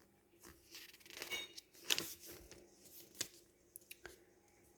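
Paper catalogue pages rustling and swishing as they are handled and turned, with a few short clicks.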